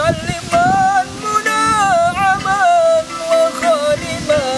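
A man singing a slow, ornamented melody in long held notes that bend and waver in pitch, high in his range, with a plucked zither accompanying underneath.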